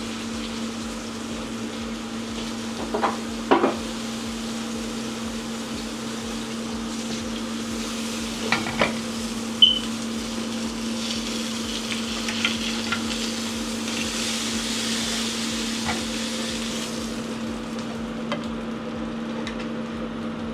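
Steak frying in butter in a pan, sizzling steadily with a few sharp clicks and knocks of a utensil against the pan, over a steady low hum. The sizzling grows louder for several seconds past the middle.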